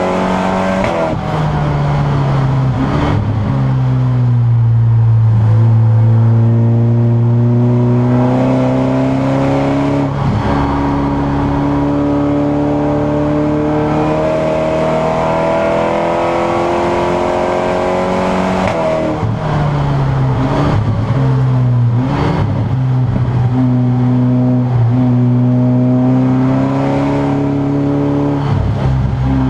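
Seat Leon Supercopa race car's turbocharged four-cylinder engine heard from inside the cabin, pulling hard with its pitch climbing slowly and then dropping sharply at each gear change. There is a run of quick pitch drops about two-thirds of the way through.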